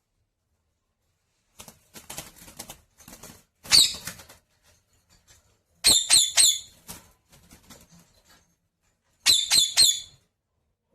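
Pet parrot giving short, shrill screeches: one about four seconds in, then two quick runs of about four, near the middle and near the end. Scratchy rustling comes before the first screech.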